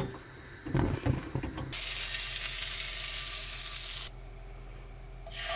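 A sharp click, then hot oil sizzling in a frying pan. The sizzle cuts off suddenly about four seconds in and starts again near the end.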